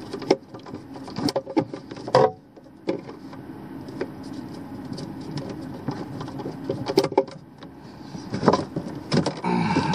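Screwdriver turning and tightening the metal terminal screws on a hard-wired RV surge protector, making irregular small clicks and scrapes.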